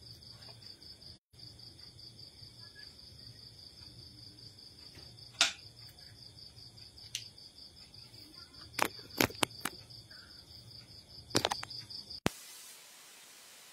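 An insect trilling steadily in a high, rapidly pulsing tone, with a few sharp knocks and clicks, the loudest about five seconds in and a cluster near the end. About twelve seconds in the sound cuts off suddenly to a steady hiss.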